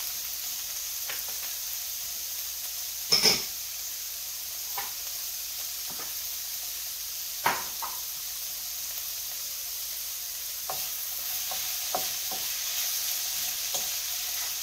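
Diced vegetables sizzling steadily in a ceramic-lined frying pan. A sharp knock comes about three seconds in and another about seven and a half seconds in, and near the end a wooden spoon stirring the pan gives a run of light taps.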